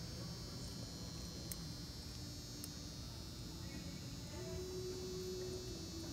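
Faint steady background hum with a high buzz. Two small clicks come about a second apart, and a steady low tone joins about four seconds in.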